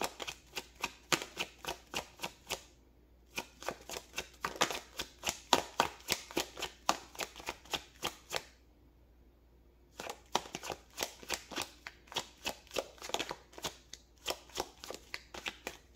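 A deck of tarot cards being shuffled by hand, the cards slapping and clicking against each other about three to four times a second. The shuffling stops briefly twice, about three seconds in and again from about eight and a half to ten seconds.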